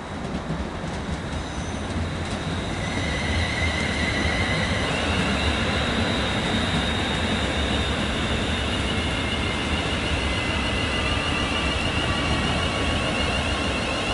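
A London Northwestern Railway Class 350 Desiro electric multiple unit arriving and running slowly past along the platform. The rumble of the wheels grows louder over the first few seconds. From about three seconds in, steady high-pitched whines sound over it as the train slows.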